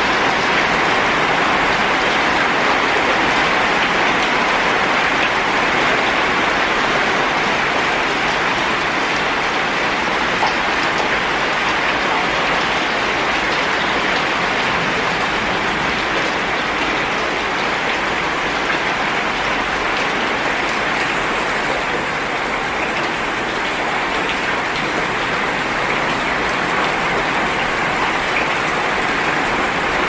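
Heavy rain falling steadily: a dense, even hiss of drops that eases a little past the middle.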